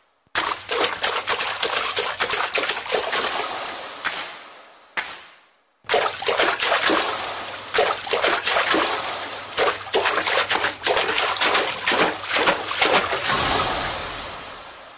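A dense rattling crackle from the dance-song playback in two swells. Each starts suddenly and fades away over several seconds, with a short silence about five seconds in, and the second swell fades out near the end.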